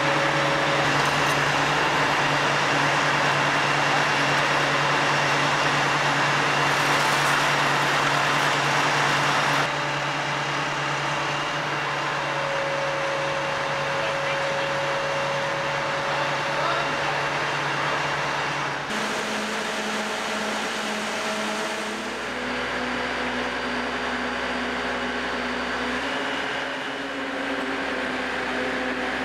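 Steady running of a mobile crane's diesel engine during a lift, a constant hum under a wash of machinery noise. The tone and level shift abruptly about ten seconds in and again about two-thirds of the way through.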